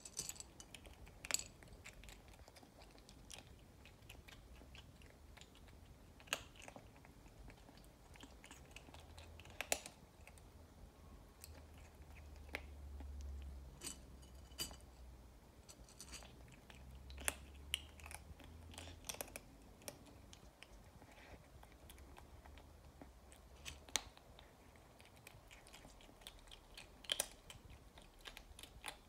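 A kitten chewing dry kibble: faint, irregular crisp crunches as it bites the pellets.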